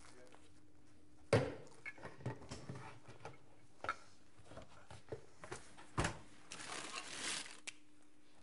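A door opened with a sharp clunk of its latch about a second in, then light knocks and shuffling steps, and another heavy thud about six seconds in, followed by a short rushing noise over a faint room hum.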